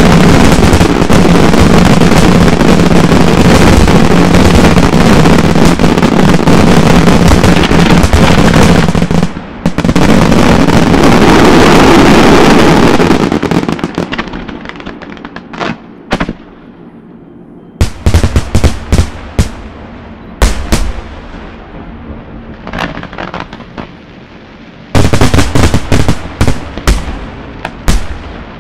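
Aerial fireworks: a dense, continuous barrage of shell bursts and crackling with a short break about nine seconds in. It dies away about a third of the way through, and the rest is separate loud bangs, single and in quick clusters.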